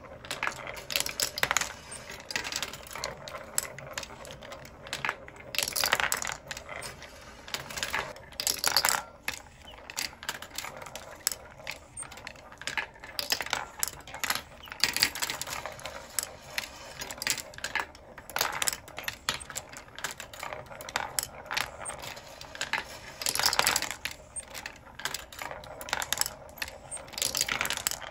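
17 mm glass marbles running through a wooden marble machine, clicking and rattling irregularly as they roll along wooden and wire tracks, knock against each other and drop through a pivoting lever arm. Louder bursts of clatter come every few seconds.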